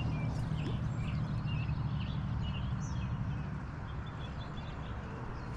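Small songbirds chirping and warbling in short notes over a steady low rumble.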